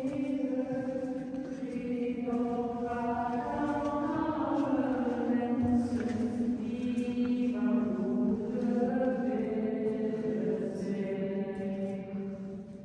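Small choir singing a sacred church chant unaccompanied in a vaulted stone church hall: several voices hold long notes that shift slowly in pitch, fading near the end.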